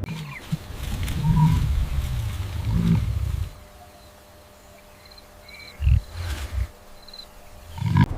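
Deep growls and rumbles from a large wild animal, heavy for about the first three seconds, then a quieter pause broken by two short low grunts near the end.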